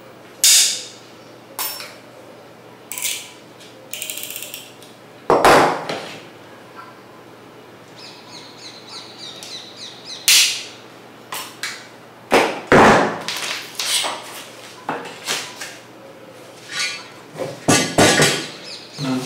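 Trimmed-off edge strips of a 0.45 mm aluminium print sheet being bent and broken off with pliers: a series of irregular sharp metallic snaps and clicks, with a run of rapid small ticks partway through.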